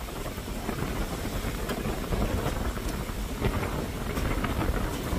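Wind buffeting the microphone: a steady low rumble and rush, with a few faint clicks.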